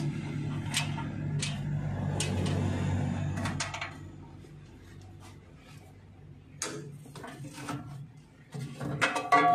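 A steady low mechanical hum that dies away about four seconds in, with sharp clicks throughout and a burst of clatter near the end.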